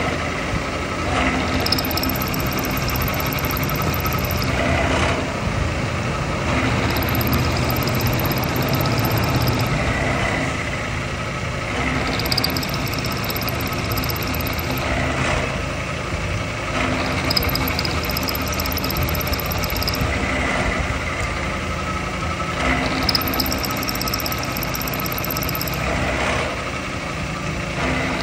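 Workshop machine running steadily under power, with a recurring swell and a higher whine that come back every few seconds as it works through repeated cutting cycles.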